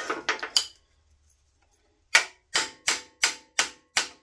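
A short clatter of tools on metal, then a hammer tapping metal from about two seconds in: a steady run of sharp strikes, about three a second, each with a brief metallic ring.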